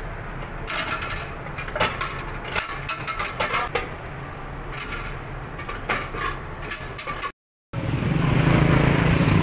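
Scattered clicks and knocks of things being handled behind a food-stall counter, over a low steady hum. After a brief cut to silence, a louder steady rumble of outdoor traffic.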